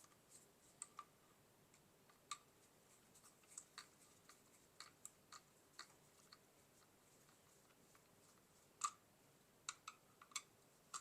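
Faint, irregular small clicks and ticks of a screwdriver backing screws out of the plastic fan-motor housing of a Roomba i7 robot vacuum, with a sharper click about nine seconds in.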